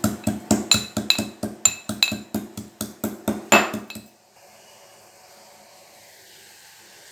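Fresh ginger being crushed with a pestle in a mortar: rapid ringing pounding, about four strikes a second, with the hardest blow a little after three and a half seconds. The pounding stops about four seconds in, leaving a faint steady hiss.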